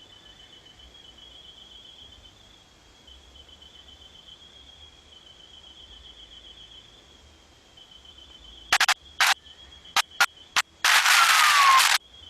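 Faint, steady trilling of insects, pulsing at a high pitch. About three-quarters of the way in, several sharp, loud clicks break in, followed by a second-long burst of noise with a falling tone.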